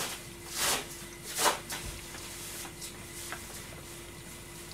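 A cooking utensil stirring vegetables in a small pan: two short scraping rasps in the first second and a half, then a few faint ticks, over a steady low hum.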